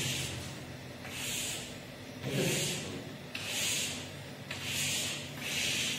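Chalk drawing straight lines across a blackboard: about six strokes, roughly one a second, as the rows of a table are ruled.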